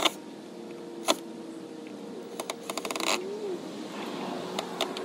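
Screws being driven into the roof eave to fix an antenna mount: a short burst of rapid clicking at the start and another about two and a half seconds in, with a single sharp click about a second in.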